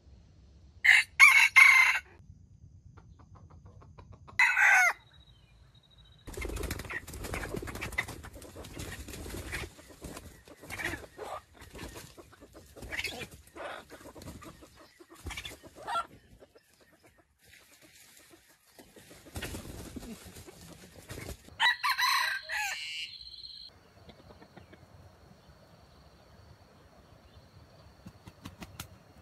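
Junglefowl rooster crowing three times in short, loud bursts: near the start, a few seconds later, and again past the middle. Fainter rustling and light knocks fill the stretch between.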